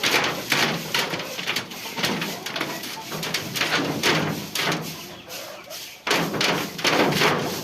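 Repeated scraping strokes on a chicken house floor, about one or two a second with a short pause about five seconds in, as the droppings and litter are cleared out.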